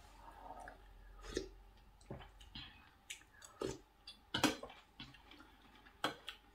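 Metal spoon clinking and scraping against a plate, with about five sharp clicks, the loudest a little past the middle, and soft chewing in between.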